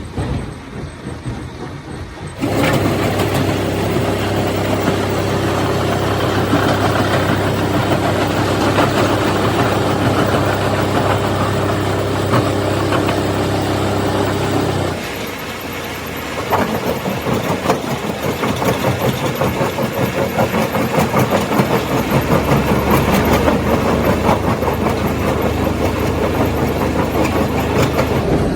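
A motor-driven machine or engine starts suddenly a couple of seconds in and runs with a steady hum, stops about halfway through, and is followed by rougher, uneven machine noise with a low hum coming back near the end.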